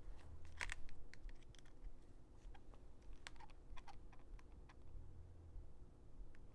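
Scattered light clicks and taps at an irregular pace from hands handling a baitcaster reel and its spool.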